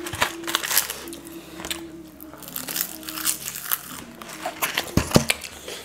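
Close-miked eating sounds of spicy instant noodles being chewed, with many short, sharp clicks and crackles of mouth sounds and cutlery against bowls.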